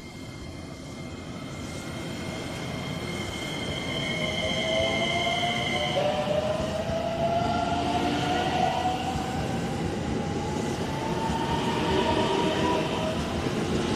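JR West 227 series electric train accelerating away from the platform: its traction inverters and motors whine, several tones rising steadily in pitch, with the pattern jumping about six seconds in as the inverter changes mode. Wheel and running noise grows louder over the first few seconds as the cars pass.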